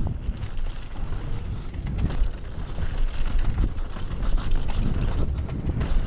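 Wind buffeting an action camera's microphone as a downhill mountain bike rides fast down a dirt trail, with tyre noise on the dirt and frequent knocks and rattles from the bike going over bumps.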